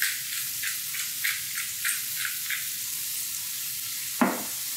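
Hand pepper mill grinding in quick twists, about three crunches a second, over diced vegetables sizzling in a hot sauté pan. The grinding stops about two and a half seconds in, leaving the steady sizzle, and a single sharp knock sounds near the end.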